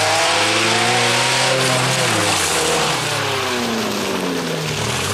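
Off-road rally 4x4's engine revving hard as it drives through mud, its pitch falling about two seconds in and rising again near the end, over a loud steady hiss.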